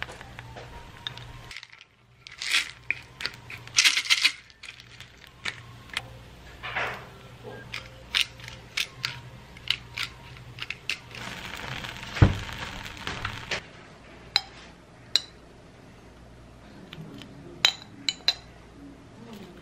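Kitchenware clatter: a plastic spatula scraping and tapping against a nonstick frying pan and a ceramic bowl, with many scattered short clinks and one sharper knock around the middle.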